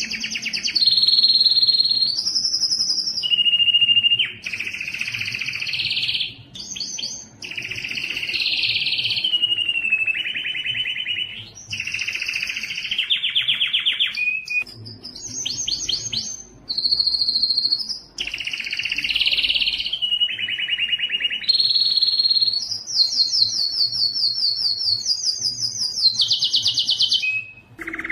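Domestic canary singing continuously: a run of rapid trills and rolls, each held a second or two before switching to a new tour at a different pitch, with a few high pure whistles.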